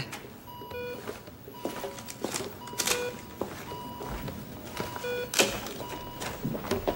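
Operating-room patient monitor beeping about every two seconds, with scattered sharp clicks and knocks, the loudest about three and five and a half seconds in.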